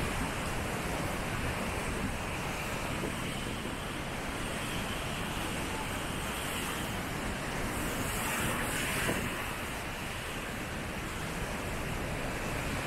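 Steady beach ambience: surf washing onto the shore, mixed with wind buffeting the microphone, swelling slightly about two-thirds of the way through.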